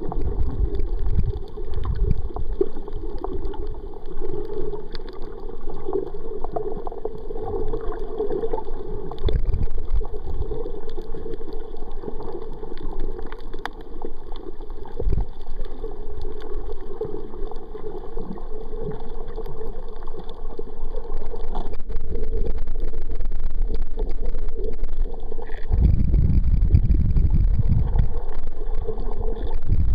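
Muffled underwater noise picked up by a camera in a waterproof housing: a steady low rush of water with occasional low knocks, and heavier low rumbling for a couple of seconds near the end as the housing moves through the water.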